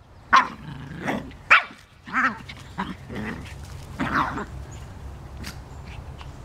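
Small dogs, a Yorkshire terrier and Shih Tzus, barking at each other in play. There are about half a dozen short, sharp barks in the first four seconds, then only a few faint ones.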